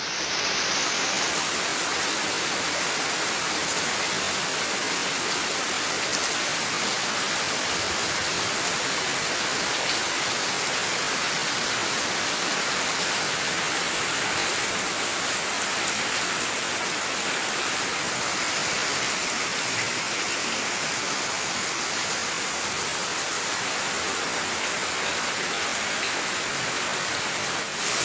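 Heavy rain pouring down steadily, a dense, even hiss of a tropical downpour.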